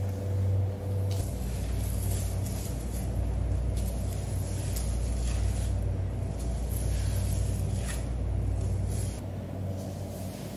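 A steady low rumble and hum of background machinery, with faint scraping strokes of a serrated knife working over the skin of a giant bluefin tuna.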